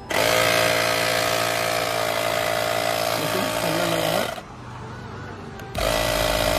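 Portable tyre inflator's electric air compressor switched on and running with a steady buzz. It cuts off about four seconds in and starts up again near the end.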